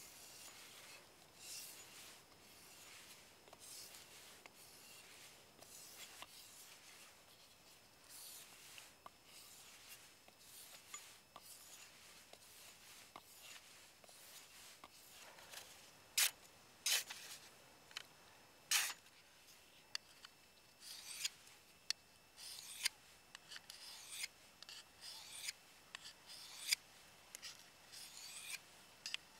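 Hand-sharpening steel blades: an axe edge stroked over and over on a flat sharpening stone, and near the end a knife drawn along a folding diamond sharpener. A run of separate rasping strokes, a few of them sharper and louder.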